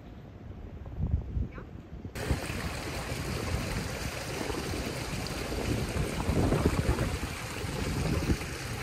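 Steady rush of running water that starts abruptly about two seconds in, with wind buffeting the microphone underneath. Before it there is only a low wind rumble.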